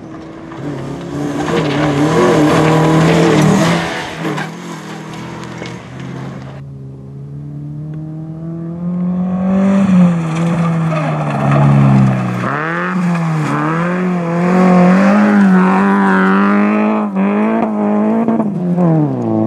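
Rally cars on loose gravel: an MG ZR hatchback's engine revving up and down as it slides through a bend with gravel spraying, then after a break a Mk2 Mazda MX-5's engine climbing in revs, dipping briefly and revving hard again through a long sideways slide, with stones rattling under it.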